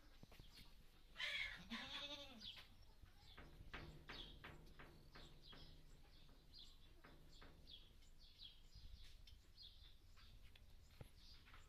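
A goat bleats once, about a second in: a single wavering call that rises and then falls in pitch. It is followed by many short, high chirps.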